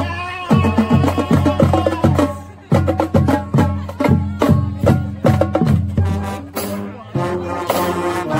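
School marching band playing a stands tune with brass, woodwinds and drums. Steady drum hits drive it, with a brief break about two and a half seconds in and longer held chords near the end.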